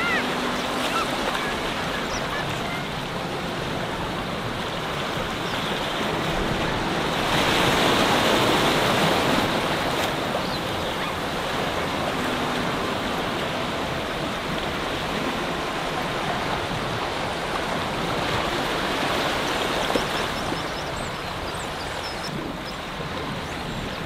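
Sea waves washing among shoreline rocks, a steady rush that swells louder for a few seconds about seven seconds in.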